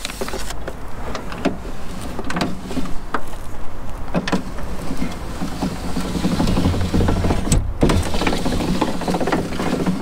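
AMC Eagle door window regulator moving the glass, a steady low hum with scattered clicks and knocks. It is strongest past the middle.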